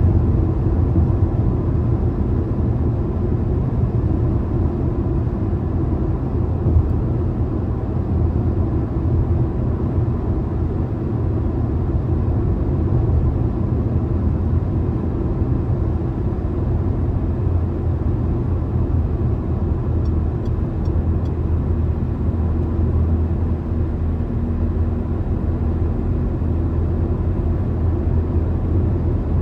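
A car driving at motorway speed: a steady low rumble of tyre and engine noise.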